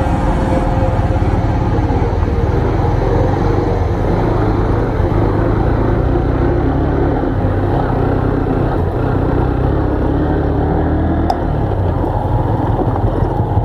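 Motorcycle engine running steadily under way, with one brief click about eleven seconds in.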